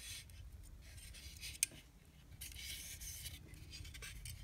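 Light scraping and rubbing, with one sharp click a little over a second and a half in, as small plastic model-locomotive parts are handled.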